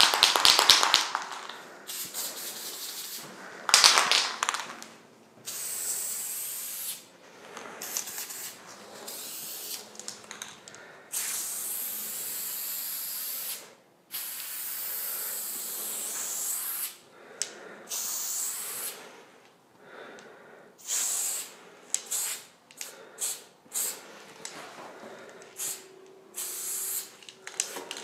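Aerosol spray paint can spraying in a series of hisses, some held for two or three seconds and others quick short blasts, with brief gaps between. About the first second is a fast rattle of the can being shaken, its mixing ball clicking.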